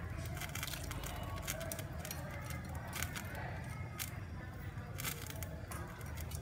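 Pot of fish soup at a gentle boil, with scattered crackling pops over a steady low hum.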